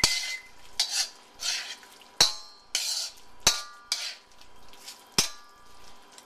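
A metal spoon stirring through thick sauce in a wok, scraping around the pan in repeated swishes and striking its side four times with sharp, briefly ringing clinks.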